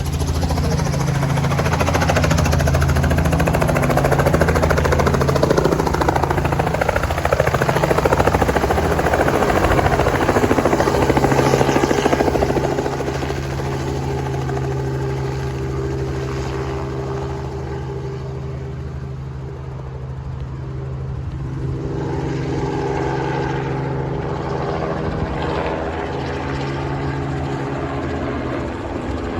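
Tour helicopter's turbine and rotor blades running close by as it takes off, loud for about the first twelve seconds and then somewhat quieter as it moves off.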